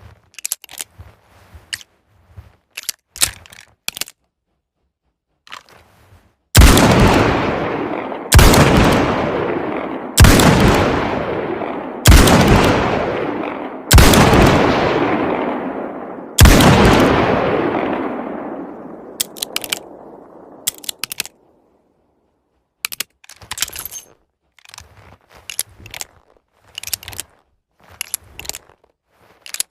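Smith & Wesson Mk II Hand Ejector revolver fired six times, about two seconds apart, each shot trailing a long fading echo. Small clicks come before and after the shots.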